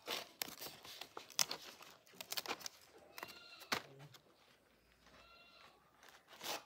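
Large fresh leaves crinkling and rustling as they are folded and pressed together by hand, with short crackles throughout. A goat bleats twice, about three seconds in and again about five seconds in.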